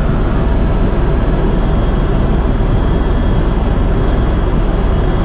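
Tour helicopter in flight: a loud, steady noise of rotor and engine, heaviest in the low end.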